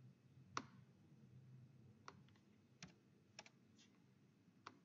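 Faint, scattered single clicks of computer input, about six of them spread a second or so apart, over quiet room tone.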